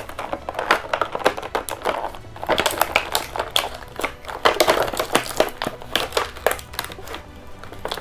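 Plastic toy packaging crinkling and clicking as it is handled and opened, with many sharp irregular clicks.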